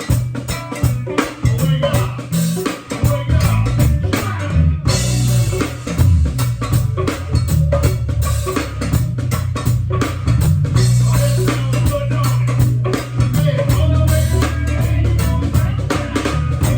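A band playing a busy, steady beat on drum kit and percussion over a heavy, sustained bass line, with guitar.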